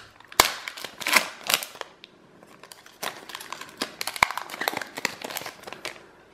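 Foil wrapper of a Panini Prizm basketball card pack crinkling and tearing as it is ripped open by hand. The sound comes in two bursts of sharp crackles with a pause of about a second between them.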